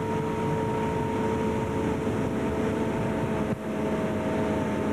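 Tow boat's motorboat engine running steadily at towing speed, a constant drone.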